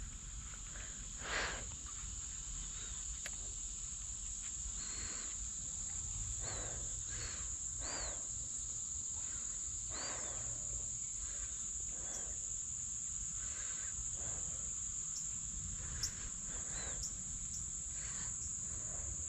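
Insects trilling in one steady, high-pitched drone, with faint short chirps and rustles scattered over it.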